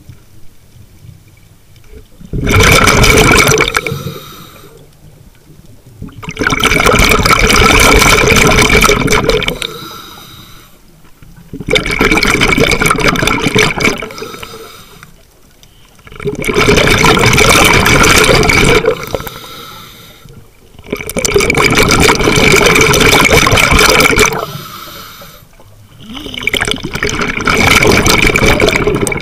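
Scuba diver breathing underwater through a regulator: six long gushes of exhaled bubbles, one every four to five seconds, with quiet gaps between them.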